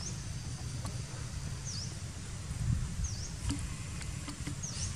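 Outdoor ambience: a short, high call that dips and then rises in pitch, repeated about every second and a half, over a steady low rumble.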